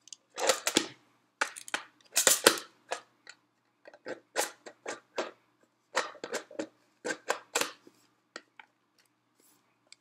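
Coffee beans rattling and clattering inside a plastic grinder bean hopper as it is handled and turned, with plastic clicks from the hopper and lid: a string of short, sharp, irregular clatters.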